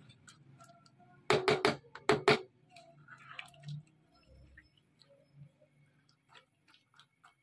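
Two short, loud metallic clatters about a second apart, a lid being set on a cooking pot of simmering dal and potatoes, followed by faint scattered ticks.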